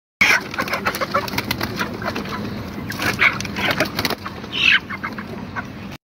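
Broiler chickens squawking and clucking while being handled and pushed into plastic crates, with wing flapping and frequent sharp knocks and rattles; the loudest squawk comes near the end.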